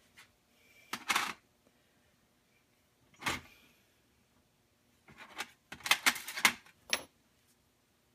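Small metal parts of a Coleman 200A lantern handled on a work surface: a clatter about a second in, another about three seconds in, then a quick run of clicks and rattles.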